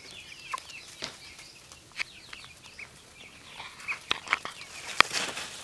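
Young Giriraja chicks cheeping with many short, falling peeps. Sharp taps come in now and then, the loudest about five seconds in, followed by a brief rustle.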